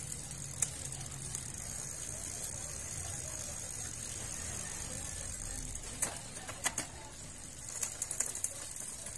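Bicycle drivetrain turned by hand to test a newly joined 9-speed chain: a faint steady running noise with a few sharp mechanical clicks, most of them between about six and eight and a half seconds in.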